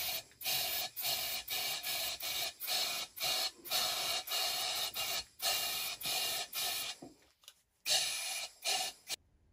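Metal body of a bullnose plane being worked by hand against an abrasive in quick back-and-forth strokes, about two to three a second, with a brief pause a little after seven seconds and a stop about nine seconds in.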